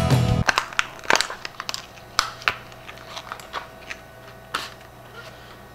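Guitar music cuts off about half a second in, then scattered sharp clicks and light crinkling as things are handled at a desk, over a low steady hum.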